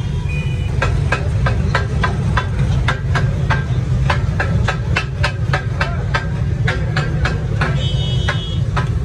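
Metal spatula striking and chopping fried fish on a large iron tawa griddle, the clattering of katakat cooking: a steady run of sharp metallic strikes, about three to four a second, over a constant low rumble.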